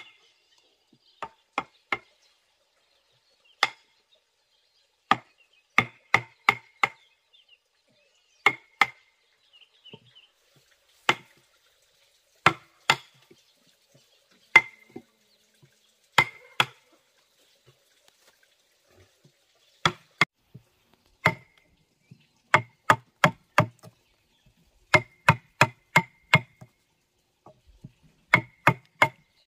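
A mallet striking a steel chisel that is cutting into a tree stump to hollow it out: sharp knocks in quick runs of two to five, with short pauses between, some strikes leaving a brief ring.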